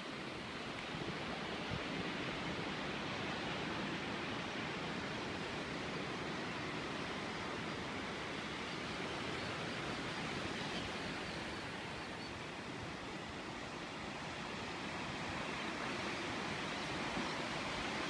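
Ocean surf breaking on a sandy beach: a steady, even rushing noise.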